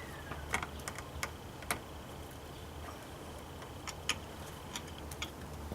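Irregular sharp clicks and taps of a screwdriver working at a plastic exhaust-vent cover as it is pried off at the sides, over a steady low hum.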